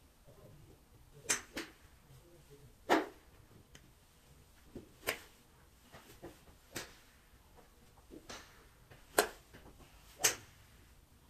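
Golf clubs striking balls at a driving range: about seven sharp cracks at irregular intervals, the loudest about three seconds in and twice near the end, with fainter ticks between.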